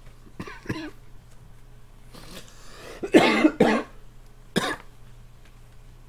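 A man coughing: a few harsh coughs, the loudest about three seconds in and a shorter one a second later, with a smaller throat sound near the start.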